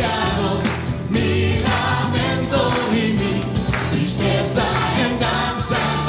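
Choir singing an upbeat Latin gospel praise song with a live band of bass, drums and jingling hand percussion.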